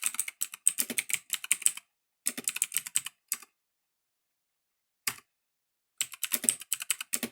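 Typing on a Motospeed GK89 mechanical keyboard with clicky Outemu Blue switches: quick runs of sharp keystroke clicks. About three seconds in, the typing stops for a couple of seconds, broken by a single keystroke, then starts again near the end.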